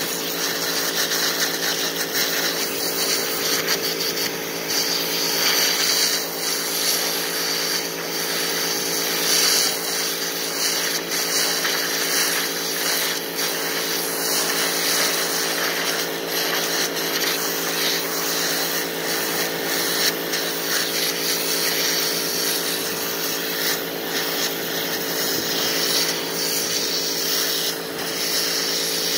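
Electric pressure washer running steadily, its motor-driven pump giving a constant hum under the hiss of a zero-degree water jet sprayed against a deer hide.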